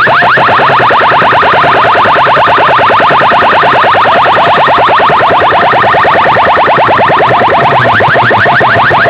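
Large DJ sound-box rig blasting a synthetic chirp effect: short rising electronic sweeps repeated rapidly, about ten a second, very loud and unbroken.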